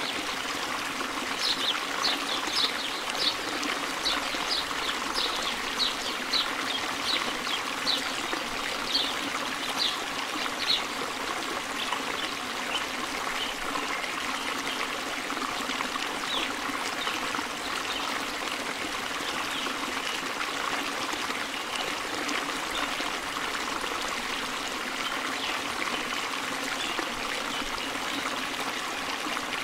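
Steady rushing noise like running water, with a run of short high chirps, one or two a second, during the first ten seconds or so.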